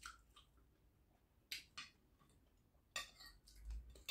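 Quiet eating at a table: a handful of short, sharp clicks and clinks from plates and chewing, two close together about a second and a half in and a small cluster about three seconds in.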